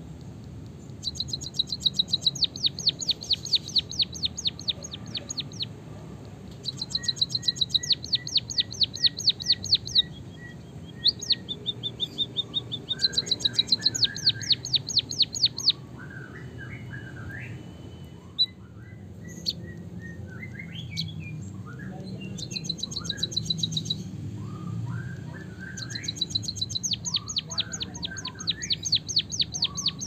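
White-headed munia singing a canary-like rolled song. It sings rapid trills of sharp high notes, about nine a second, in five bursts of a few seconds each, with softer, lower twittering between the bursts.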